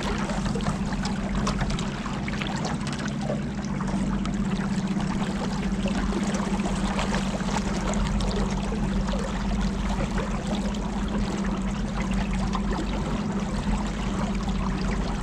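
Motorboat under way at a steady cruise: an even engine drone with water rushing and splashing along the hull.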